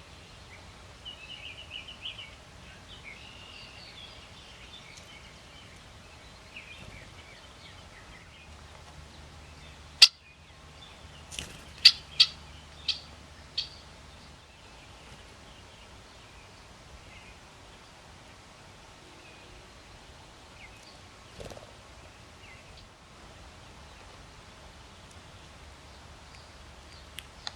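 Backyard birds chirping and calling faintly. About ten seconds in comes one loud, sharp knock, followed by a quick, irregular run of five sharp taps.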